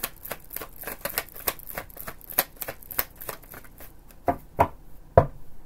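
A deck of tarot cards being shuffled by hand: a quick run of light card clicks, several a second. About four seconds in come a few heavier taps.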